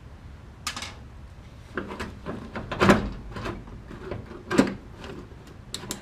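Carburetor being lifted off a small-block Chevy intake manifold: a series of separate metal clunks and knocks as it is handled, the loudest about three seconds in and another strong one a second and a half later.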